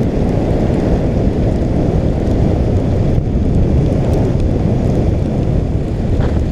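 Wind buffeting the microphone of a camera riding along a dirt trail: a steady low rumble.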